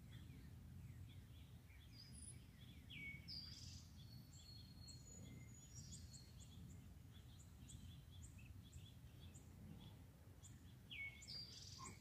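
Faint outdoor ambience with wild songbirds calling: many short high chips and a few clear whistles, including a down-slurred call about three seconds in and again near the end.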